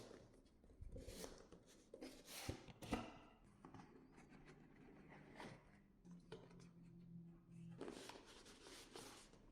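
Faint handling noises of a cardboard box being unpacked: scattered light scrapes, taps and rustles of the box and packaging.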